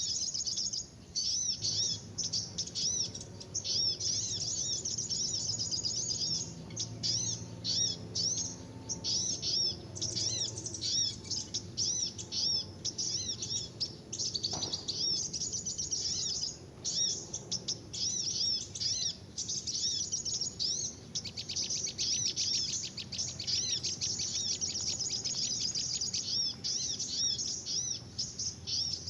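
Dense, rapid high-pitched chirping and twittering of small birds in quick repeated phrases, broken by short gaps. It is a 'burung ribut' noisy-birds lure recording, played through a speaker or phone to draw small birds to bird-lime sticks.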